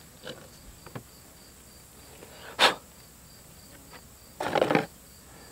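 Chainsaw parts being handled on a workbench: a few light clicks, a sharp knock about two and a half seconds in, and a short rustling scrape near the end. Insects chirp steadily and faintly in the background.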